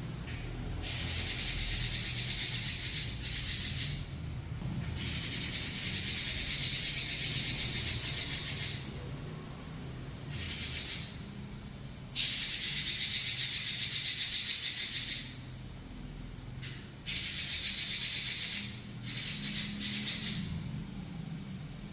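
Pekin robin (red-billed leiothrix) singing long, fast rattling trills in repeated bouts of up to about four seconds each, over a steady low hum.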